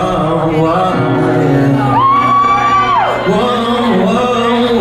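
A song with a singer's voice. About two seconds in the singer holds one long high note, then slides down off it.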